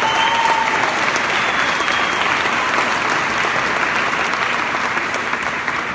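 Audience applauding, slowly dying away near the end.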